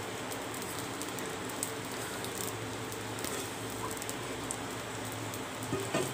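Soft, steady sizzling with faint crackles from a hot pan as thick rice batter is poured over sautéed carrot and coconut, with a brief louder noise near the end.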